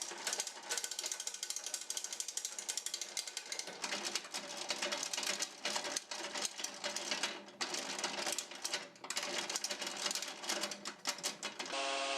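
The thickness-adjustment mechanism of a small jointer/planer being worked, its gears clicking and rattling in dense, irregular clicks. Near the end the clicking stops abruptly and a steady machine hum of several tones takes over.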